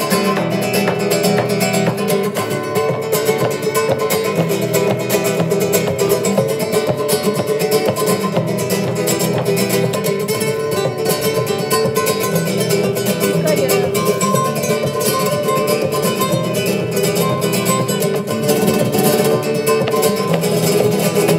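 Flamenco guitar played live, a quick, unbroken stream of plucked notes and chords at a steady volume.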